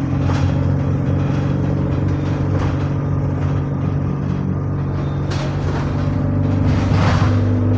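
Bus engine running under way, a steady drone whose pitch shifts a couple of times, with a few short rattles.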